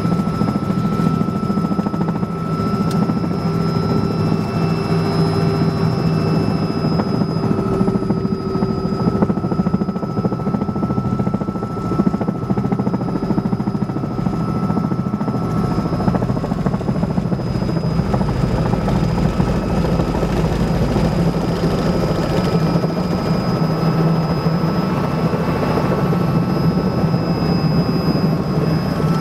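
Small helicopter's engine and rotor heard from inside the cabin, running steadily in flight: a loud, even drone with a thin steady whine above it.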